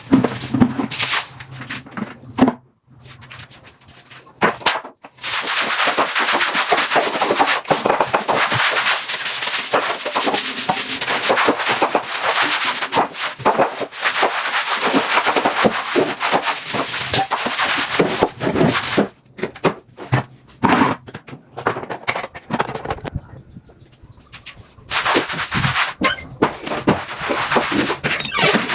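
Brisk scrubbing: a stiff brush rubbed rapidly back and forth on a hard surface, in long runs of many quick strokes broken by short pauses.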